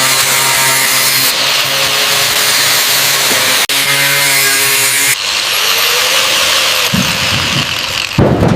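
A power tool running steadily with a loud hiss over a motor hum. It breaks off for an instant about three and a half seconds in, then changes to a different, quieter sound with a few low thuds near the end.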